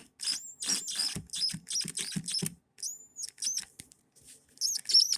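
A screw squeaking as it is turned into the plastic floor guide of a sliding barn door. It goes in a run of short, high squeaks, about three or four a second, with a brief pause in the middle.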